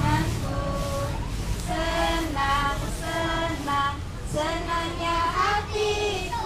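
A large group of young kindergarten children singing a song together.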